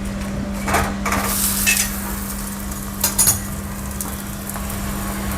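Buttered potato paratha frying on a hot griddle, with a steady sizzle. A utensil scrapes and clinks against the pan about a second in and again about three seconds in. A steady low hum runs underneath.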